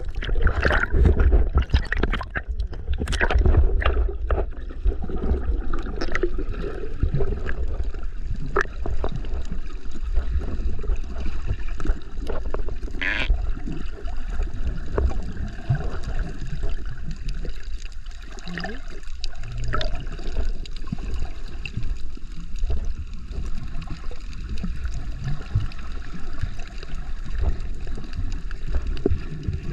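Sea water sloshing and gurgling around a snorkeler, over a steady low rumble, with many small clicks that are busiest in the first few seconds.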